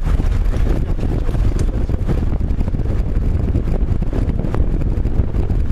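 Strong storm wind buffeting the microphone, a steady loud low rumble of rushing air.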